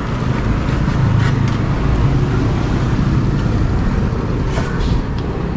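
Road traffic noise: a steady low engine rumble from passing vehicles, with a few light clicks.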